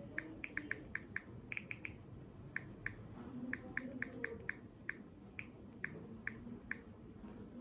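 Key-press clicks from a Samsung Galaxy J2's on-screen keyboard as a word is typed: a quick, uneven run of about twenty short high ticks, in bursts with small gaps, stopping near the end.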